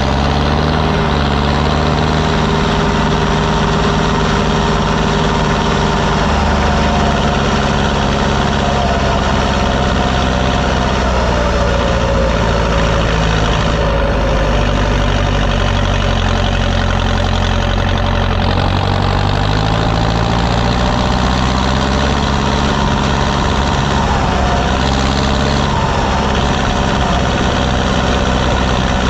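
Fendt 510C tractor's diesel engine running steadily while working a field roller over grassland. Its speed sags about halfway through, drops lower a little later, then climbs back up.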